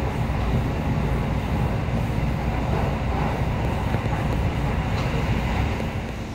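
Train running past with a steady low rumble.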